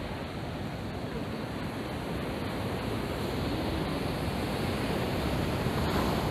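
Ocean surf breaking on a sandy beach, a steady wash of wave noise with some wind on the microphone, growing a little louder toward the end.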